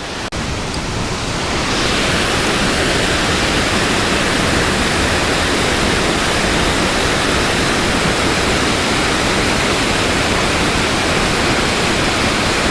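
Steady rush of flowing river water close to the microphone: an even, wide hiss that builds over the first two seconds and then holds level.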